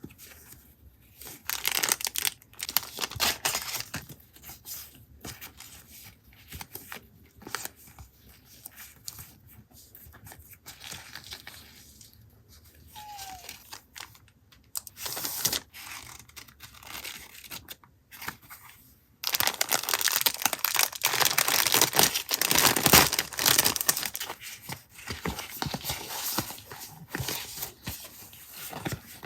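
Paper and packaging handled close up, crinkling and tearing in scattered rustles, with a long, louder stretch of crinkling about two-thirds of the way through.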